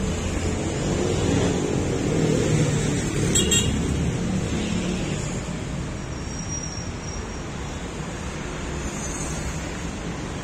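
Steady road traffic noise from a busy city expressway, swelling for a couple of seconds as vehicles pass about two seconds in.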